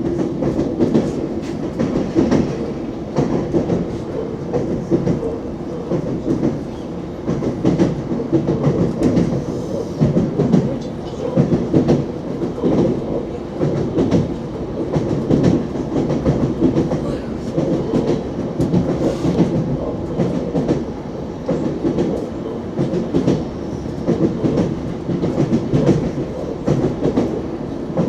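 ES2G Lastochka electric train running at speed, its wheels clicking over rail joints in repeated clusters of knocks every second or two over a steady low rumble, heard from inside the carriage.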